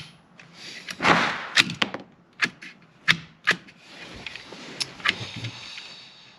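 A string of sharp, irregularly spaced clicks and clacks from working a Ruger 10/22's charging handle and action, the longest and loudest about a second in. It goes with a feeding problem with the Eley Outlaw .22 ammunition.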